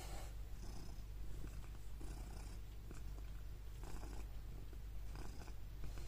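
Domestic cat purring steadily while held close in someone's arms.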